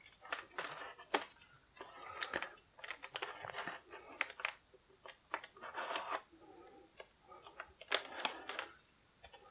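X-Acto hobby knife cutting packing tape on a cardboard box: faint scratching strokes of the blade with small clicks and taps of cardboard and plastic tabs, coming in short clusters.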